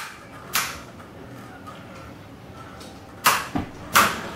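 Two Beyblade Burst spinning tops going round in a plastic stadium with a steady faint whir, giving sharp plastic clacks as they hit, once about half a second in and several times in quick succession near the end.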